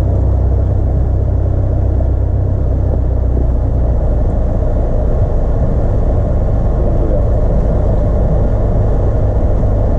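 Single-engine light aircraft's piston engine and propeller running steadily at low taxi power, heard from inside the cockpit as a constant low drone.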